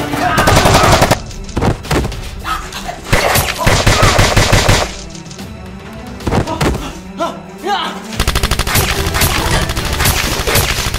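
Three bursts of rapid machine-gun fire from a dubbed-in sound effect, one at the start, one about three seconds in and one from about eight seconds in, over background music.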